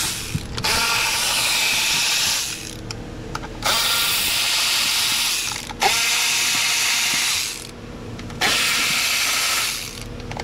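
Power ratchet with an 8 mm socket on an extension, spinning out intake manifold bolts. It runs in four bursts of about two seconds each, with short pauses and clicks between them.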